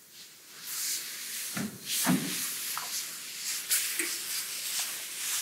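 Rustling of costumes and shuffling steps on a wooden stage as costumed children move about, with a couple of soft thumps about one and a half and two seconds in.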